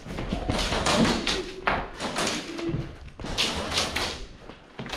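Irregular thumps and rustling of a player moving about close to the microphone, several short noisy bursts in a row.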